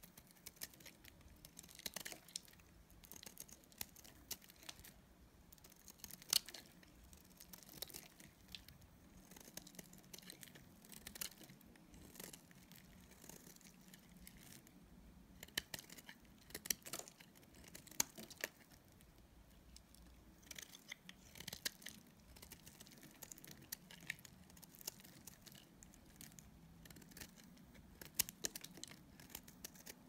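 Snap-off utility knife blade cutting into bars of dry soap: faint, irregular crisp cracks and crackles as flakes and curls break away under the blade.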